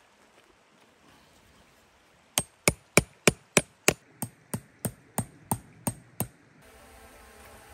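A hammer striking in a quick, even run of thirteen blows, about three a second, each a sharp knock with a short ring; the first blows are the loudest.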